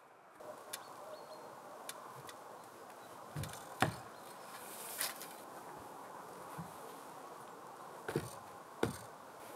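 Scattered knocks and clunks, the loudest about four seconds in, as a person climbs an aluminium stepladder and moves about on the top of the log walls.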